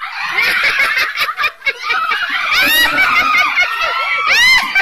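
A group of women shrieking and laughing loudly all at once as they scramble for chairs when the music stops, with two high rising shrieks, one about two and a half seconds in and one near the end.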